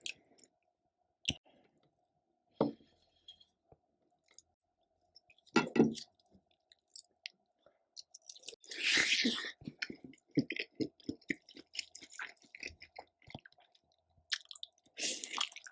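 Close-miked chewing and mouth sounds of a person eating, with scattered wet clicks and a longer noisy burst a little past halfway.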